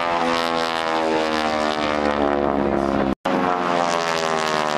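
Piston engine and propeller of a single-engine aerobatic plane flying overhead, a steady drone that slowly falls in pitch. The sound cuts out for a split second about three seconds in.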